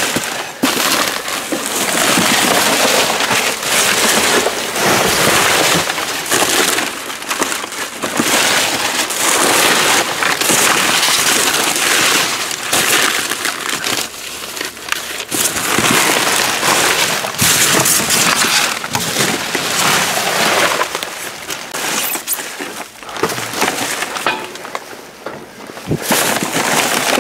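Plastic bags, cellophane and bubble wrap crinkling and rustling without a break as hands dig through trash in a dumpster, with many small knocks and crackles from items being shifted.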